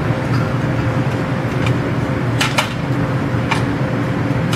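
Sausage browning in butter in a frying pan: a steady sizzle with a few taps of the spatula against the pan, over a steady low hum.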